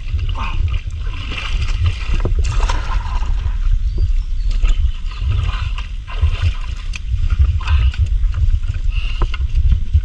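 Feet splashing and sloshing through shallow muddy water while wading, over a steady low rumble.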